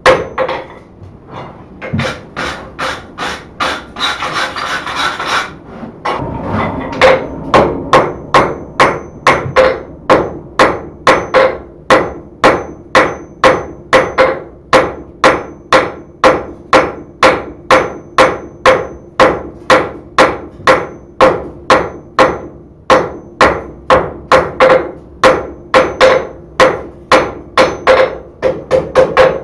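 Hand hammer striking a white-hot steel rod bundle on an anvil during forge welding, a steady run of about two ringing blows a second. In the first few seconds the blows are lighter and overlaid by a rasping scrape.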